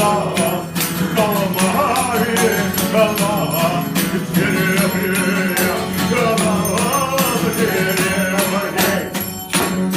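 Music of bells: many small bells struck in quick succession over a steady low tone, with a voice singing over them.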